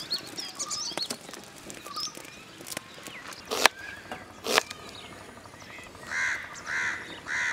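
Kitchen knife knocking on a plastic chopping board as a red onion is sliced, a few separate sharp clicks, the loudest two in the middle. Small birds chirp in the first second, and a crow caws three times near the end.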